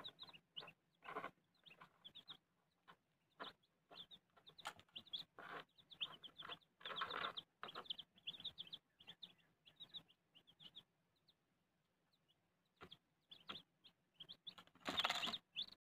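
Young chicks and a Muscovy duckling peeping softly in a brooder, many short high chirps at an uneven pace, with a few brief louder rustling noises and a quieter lull about two thirds of the way through.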